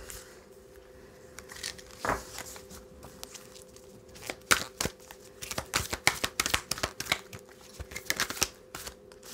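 A deck of oracle cards being shuffled by hand: a run of quick soft flicks and snaps of card against card, sparse at first and thick from about halfway on, over a faint steady hum.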